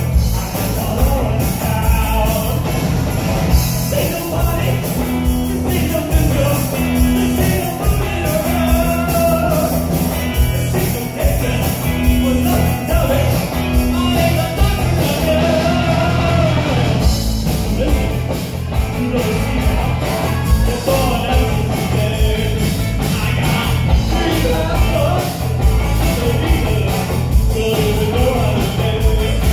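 Live rock band playing a song with a lead singer, over a drum kit and electric guitars.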